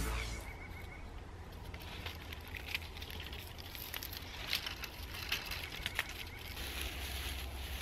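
Cedar bark being pulled and torn off a tree trunk by hand: scattered soft crackles and snaps over a low steady rumble.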